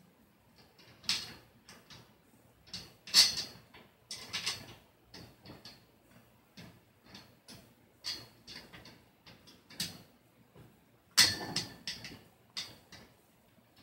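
Metal wire shelf and steel frame tubes of a clothes rack clicking and clinking against each other as the shelf is worked into place by hand, in irregular taps with a few sharper knocks and the loudest clatter near the end.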